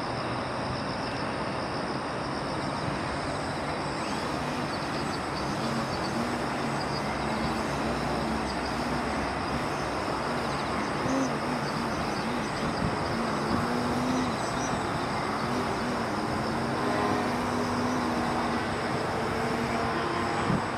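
Electric motor and propeller of a small RC aerobatic biplane (AXI brushless motor) buzzing, the pitch wavering up and down as the throttle changes through the middle, over a steady hiss of background noise.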